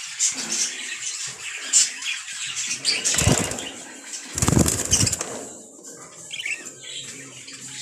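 Budgerigars fluttering in a wire cage: two short bursts of wing-flapping, about three seconds in and again about four and a half seconds in, with scattered short high-pitched budgie chirps around them.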